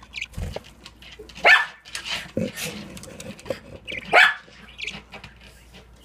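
Two short, loud animal calls about two and a half seconds apart, with softer chirps and clicks between them.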